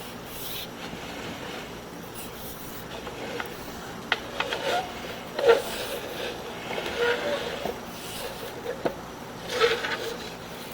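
Sewer inspection camera and its push cable scraping and knocking inside a drain line as the camera is pulled back through the fittings: irregular rubbing scrapes and sharp clicks from about four seconds in, over a steady hiss.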